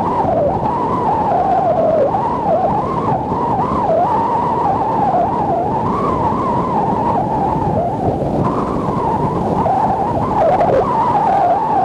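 Strong wind howling, with a high whistle that wavers irregularly up and down in pitch, over the steady rush of surf.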